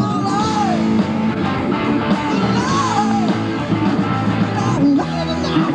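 Rock band playing live with electric guitars, bass guitar and drum kit.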